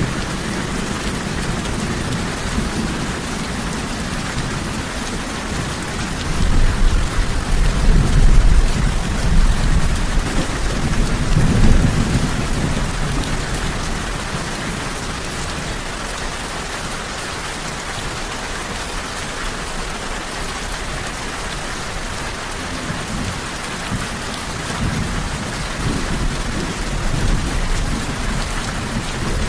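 Steady rain falling, with a low rumble of thunder rolling in about six seconds in and fading after several seconds; a fainter rumble returns near the end.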